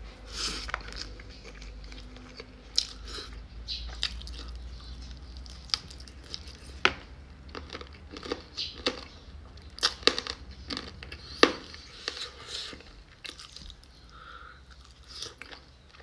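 A person eating rice and curry by hand close to the microphone: chewing with wet mouth smacks and clicks at irregular intervals, the loudest about 7 and 11.5 seconds in. A steady low hum runs underneath.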